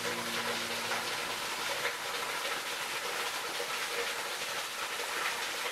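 Small waterfall: a thin stream of water falling onto rocks and splashing, a steady hiss of running water. The last notes of background music die away in about the first second.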